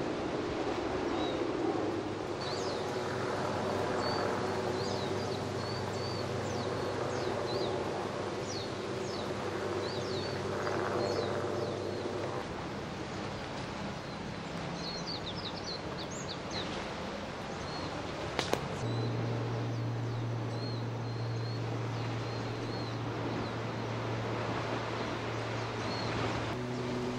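Outdoor night ambience: many short, high chirping calls from small animals over a steady low mechanical hum, with a single sharp click about two-thirds of the way through, after which the hum changes pitch.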